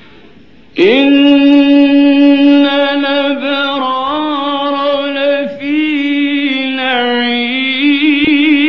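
A man reciting the Quran in the melodic mujawwad style: one long phrase, held on a steady pitch with ornamented turns and a fast quavering vibrato near the end, beginning about a second in.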